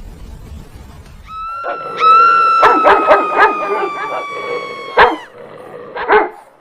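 An animal's long, slowly falling howl, with sharp yelps over it and a loud sharp hit as it cuts off, then a short bark-like burst.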